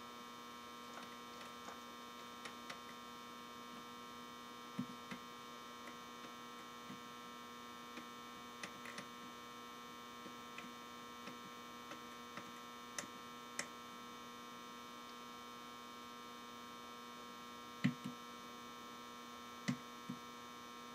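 Faint steady electrical hum, with a scattering of small clicks from wires being handled on the battery terminal; the clicks are a little louder near the end.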